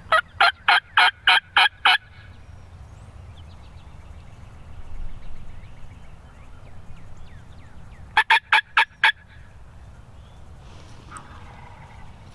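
Turkey yelping: a loud run of about seven quick, evenly spaced notes, then a second run of about six notes about eight seconds in.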